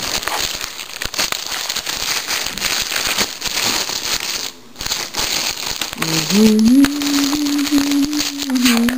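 Plastic packaging crinkling and crackling as a new computer keyboard is unwrapped by hand. Near the end, a steady low tone is held for about three seconds.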